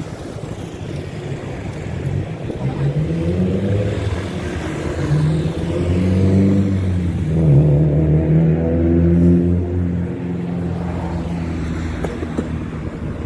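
A motor vehicle's engine going past in street traffic, its pitch rising and falling and loudest about two-thirds of the way through.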